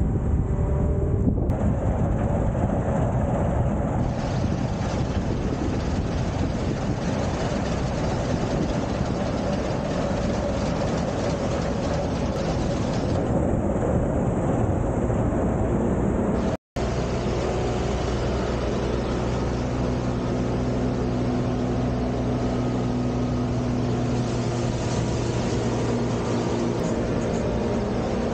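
Case IH combine harvester running steadily, a continuous engine and machinery drone. It breaks off for a split second about two-thirds of the way through and resumes, with a steadier low engine hum after the break.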